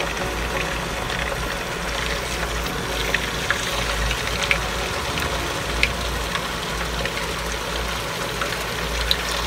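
Oil sizzling steadily around marinated chicken breast pieces frying in a wok on medium heat, with a few brief sharp clicks and a steady low hum underneath.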